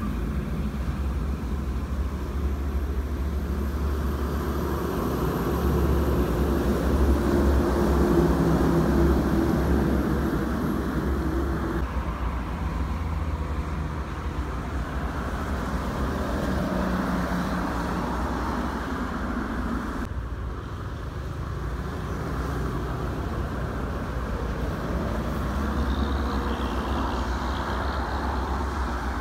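Toll-road traffic: buses, trucks and cars passing at speed, a steady rumble of engines and tyres on wet asphalt. It swells as a heavy vehicle passes close about six to ten seconds in, and the sound changes abruptly near twelve and twenty seconds in.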